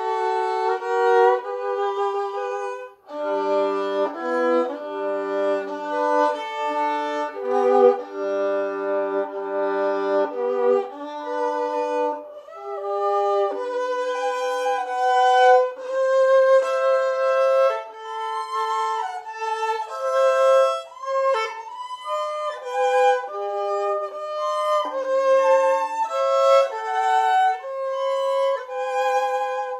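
Solo violin bowed, playing a melody. For roughly the first ten seconds it sounds two strings at once, reaching down to the low G string. After that it plays a single higher line of held notes.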